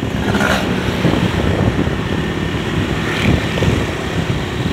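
Steady loud rumble of a moving road vehicle, with wind rushing over the microphone as it rides along.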